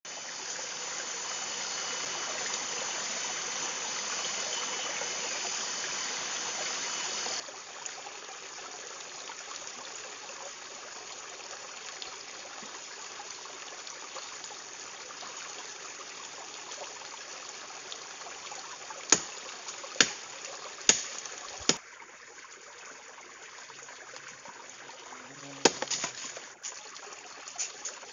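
Steady rush of a running stream, louder for the first seven seconds and then softer. Past the middle come four sharp knocks about a second apart, and a few more a few seconds later.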